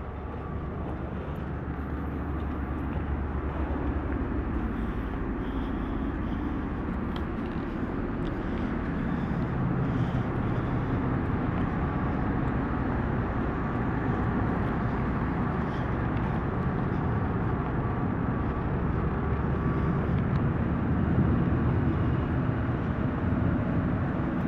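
Steady low rumble of a car ferry's engines and machinery under way, growing gradually louder over the span.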